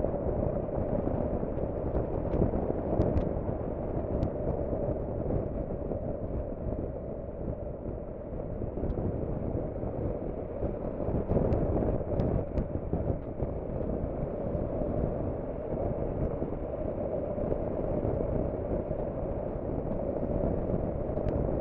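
Steady wind rush and road noise on the microphone of a motorcycle at road speed, dulled by noise reduction.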